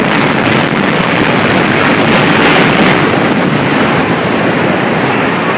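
Loud, continuous roar of a building's controlled implosion: the explosive charges' blast and the structure collapsing, a steady rumbling noise with no letup.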